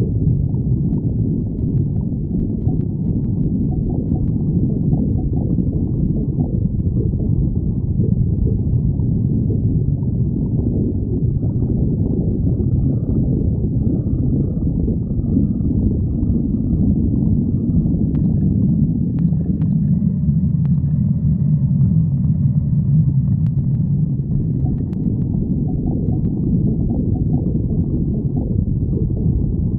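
A person's stomach growling from hunger: a continuous low rumble, steady in level. It settles into a deeper, more even rumble about two-thirds of the way through.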